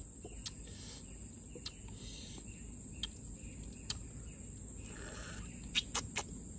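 Steady high-pitched insect drone, with a few sharp clicks scattered through and three in quick succession near the end.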